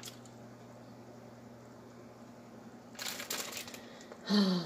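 A small clear plastic bag crinkling as it is handled about three seconds in, over a faint steady hum. Near the end comes a short hummed vocal sound that falls in pitch.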